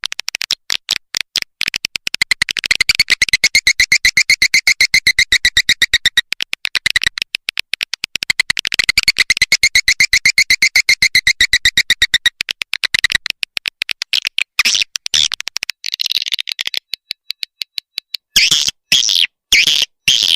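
Recorded swiftlet lure call: fast trains of clicking, buzzy twittering chirps in two long phrases, then shorter, louder squawking chirps in the last few seconds. This is the kind of call played from a bird house to draw swiftlets in to roost and nest.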